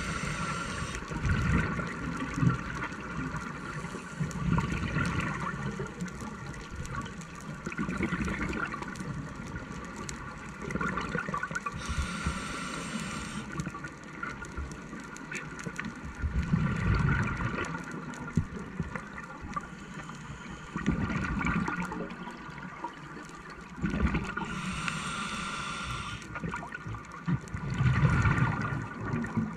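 Scuba diver breathing through a regulator underwater: a hissing inhale twice, about twelve seconds apart, and repeated bursts of exhaled bubbles gurgling between them. A faint steady hum runs underneath.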